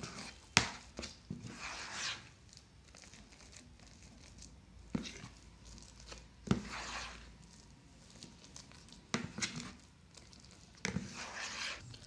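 A steel spoon stirring a thick, crumbly, half-cooked kalakand mixture in an enamel bowl: a wet, grainy scraping and squishing, broken by several sharp clinks of the spoon against the bowl. The mixture has turned granular after its microwave rounds.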